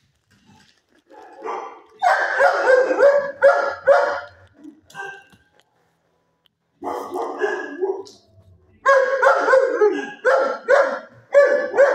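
A dog barking in two runs of repeated barks, about two a second, with a pause of a couple of seconds between them.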